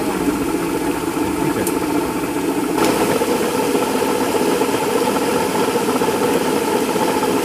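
A steady mechanical drone, like an engine running, that shifts in tone about three seconds in.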